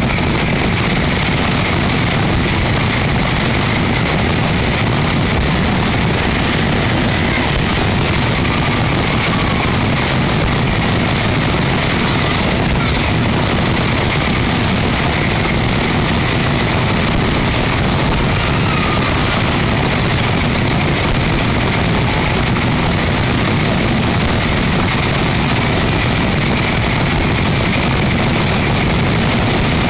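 Dense fireworks barrage: a steady, unbroken rumble with crackling, no single bursts standing out.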